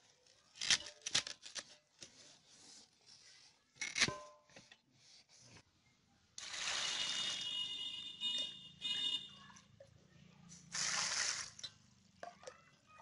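Water poured into an aluminium bowl of cut dosta kochu (taro stem) pieces for several seconds, with a shorter pour about two seconds later. A few sharp knocks on the bowl come in the first four seconds.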